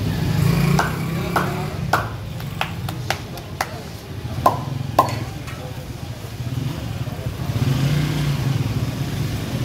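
Busy street ambience with a steady low traffic engine rumble and background voices. About a dozen sharp clicks and clinks come in the first five seconds, two of them ringing briefly like struck metal.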